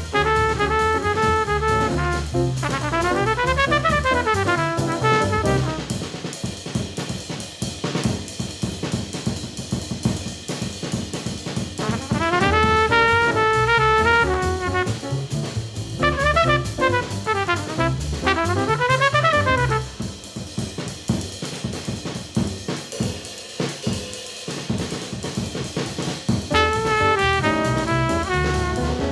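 Small-group bebop jazz recording in which trumpet phrases alternate with unaccompanied drum-kit breaks of about six seconds each, twice in turn: the trumpet and drums trading.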